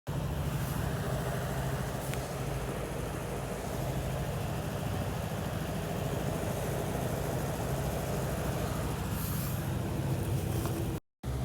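A steady low mechanical hum, like a motor running, with a brief dropout near the end.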